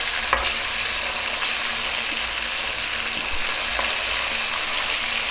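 Marinated chicken pieces sizzling steadily as they shallow-fry in hot oil on high flame, while a spatula works through the pan turning them, with one sharp knock shortly after the start.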